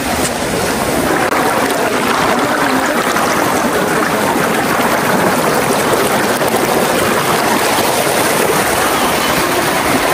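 Rocky mountain stream rushing and cascading over boulders, a steady rush of water.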